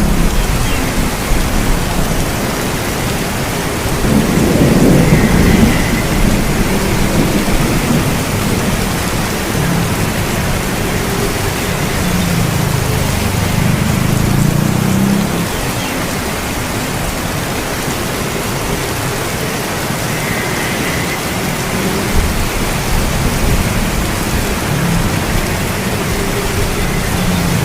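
Steady heavy rain with low rolling thunder, the rumble swelling about four seconds in and again around the middle.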